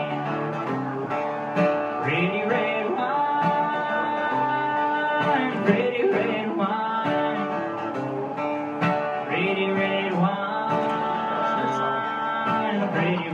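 A man singing a country song to his own strummed acoustic guitar, with long held vocal notes over steady chords.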